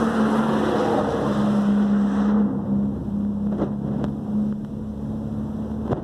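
Steady motor hum with a low droning pitch, over a haze of street noise that eases about two seconds in; two faint ticks near the middle.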